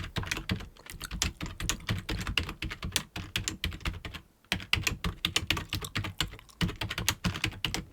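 Computer keyboard typing: rapid, uneven key clicks, with a brief pause a little past four seconds in.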